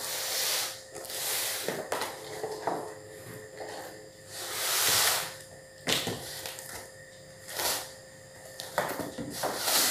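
Cardboard rustling and scraping as a shipping box's flaps are pushed aside and a boxed doll set is slid out and handled, coming in several bursts of about a second with a couple of sharp knocks.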